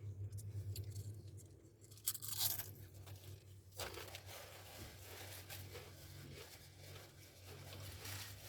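Close-up crunching and chewing of Subway food over a low steady hum, with a loud rustle about two seconds in.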